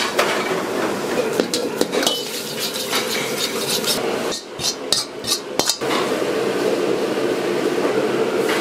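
Metal ladle stirring and scraping in a wok and clanking against its rim, with a cluster of sharp metallic clicks about halfway through, over a steady kitchen din.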